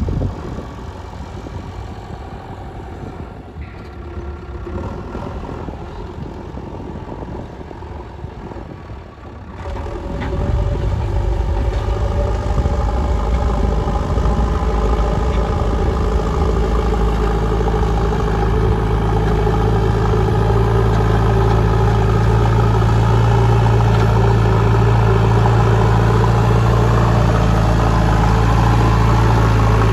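JCB 3DX backhoe loader's diesel engine running, at first at a lower level, then about ten seconds in growing much louder and running steadily with a deep hum.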